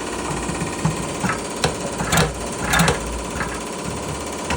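KamAZ NEO truck diesel engine running rough with one cylinder not firing, a steady drone broken by several sharp knocks at uneven intervals: the extraneous knock that goes with the misfire.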